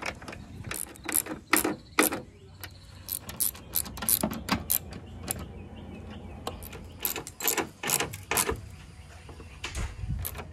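Socket ratchet clicking in quick runs with short pauses, its pawl ticking as 10 mm bolts are driven in to hold a headlight.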